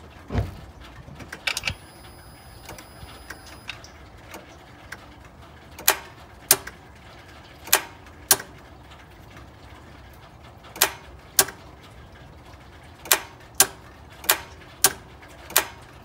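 Honda Pilot starter solenoid clicking sharply each time the key is turned, mostly in pairs about half a second apart, about a dozen clicks, while the engine does not crank. The click shows that power is reaching the starter; the owner's diagnosis is a failed starter motor.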